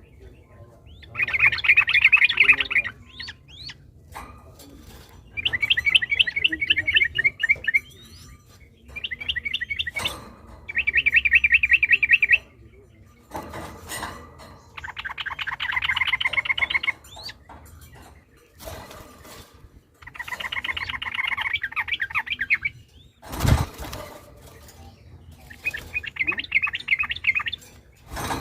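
Yellow-vented bulbul (trucukan) singing its long, rapid bubbling phrases, about eight bursts of one to two seconds each with short pauses between. A single dull thump sounds about 23 seconds in.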